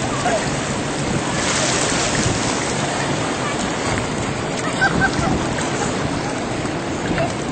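Steady rush of surf and wind buffeting the microphone.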